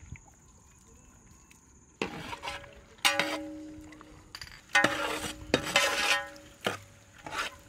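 Long metal ladle stirring thick sauce in a large metal cooking pot, scraping and knocking against the pot's sides so the pot rings. It starts about two seconds in, as several rounds of stirring.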